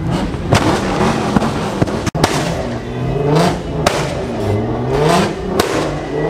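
A car's engine revved repeatedly through a loud aftermarket-style exhaust, its pitch rising and falling with each blip, with several sharp cracks between the revs.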